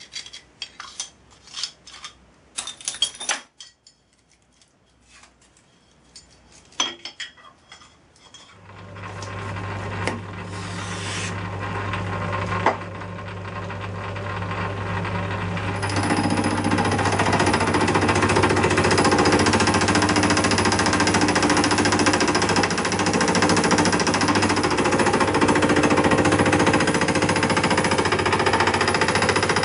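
Metal clicks and small knocks as a hex key tightens fittings into an aluminium extrusion. About nine seconds in, a Myford lathe's motor starts and runs with a steady hum. From about sixteen seconds in comes the loud, steady noise of a cutter in the spindle machining an aluminium angle clamped to the cross-slide.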